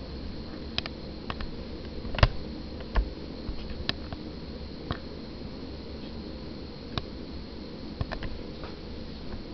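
Steady hiss of a GoSystem GS2100 camping gas stove's burner running on a propane-butane cartridge under a steel mug of water, with scattered sharp ticks, the loudest a little over two seconds in.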